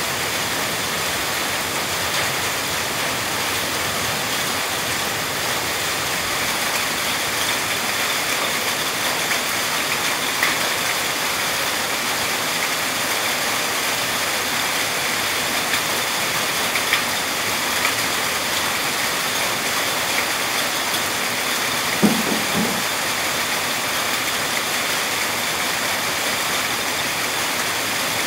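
Steady rain falling hard, an even rushing hiss throughout, with a few faint clicks and one short knock about three-quarters of the way through.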